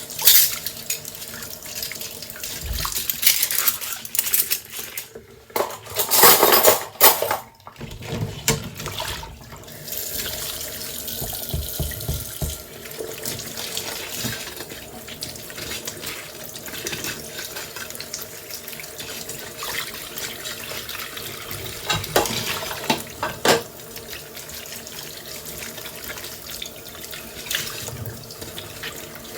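Tap water running into a kitchen sink while dishes are washed by hand, with occasional clinks of dishes and a louder rush of water about six seconds in.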